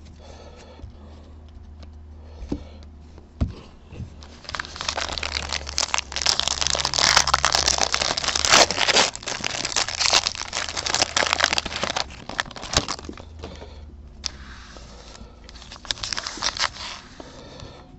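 Foil trading-card pack wrapper being torn open and crinkled by hand: a long stretch of loud crackling crinkle in the middle, with a shorter burst of crinkling near the end.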